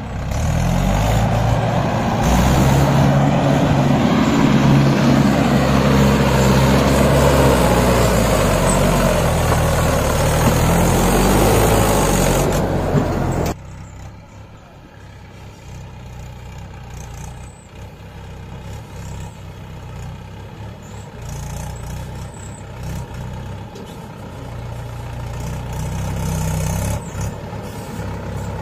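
Tractor diesel engine running hard, its pitch rising and falling. About halfway through the sound drops suddenly to a quieter, steadier engine running.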